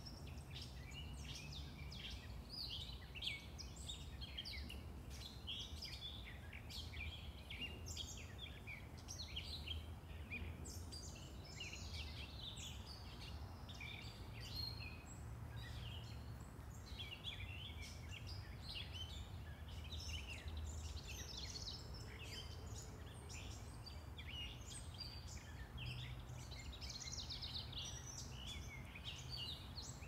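A chorus of yard songbirds chirping and singing in quick, overlapping phrases, over a steady low rumble of distant road traffic.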